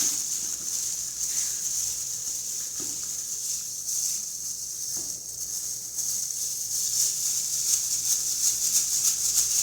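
Small clicks, scrapes and rustles of gloved hands handling and working on a GFCI outlet, growing busier in the second half, over a steady high-pitched hiss.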